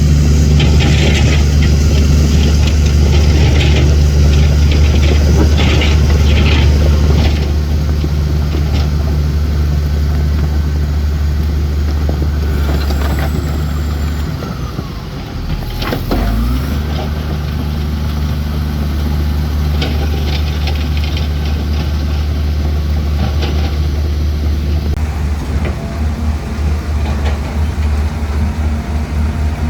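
Heavy diesel earthmoving machinery running steadily under load, with a rattling metallic clatter over the first several seconds. About halfway through, the engine note drops briefly, then climbs back up in pitch and settles.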